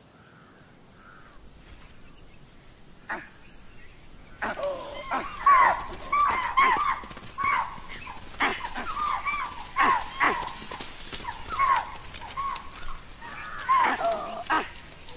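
Barking alarm calls of spotted deer (chital) and langurs: a few faint calls, then from about four seconds in a rapid series of sharp barks, roughly two a second. The prey have detected a stalking lioness.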